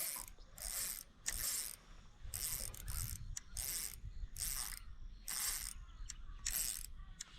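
Fishing reel clicking and whirring in short repeated bursts, about one and a half a second, as a hooked Australian bass is fought and reeled in.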